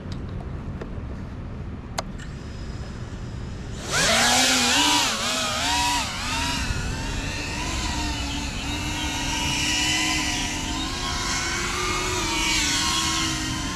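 GEPRC CineLog35 cinewhoop's brushless motors and ducted propellers spool up suddenly about four seconds in as it takes off, then whine on, the pitch rising and falling with the throttle.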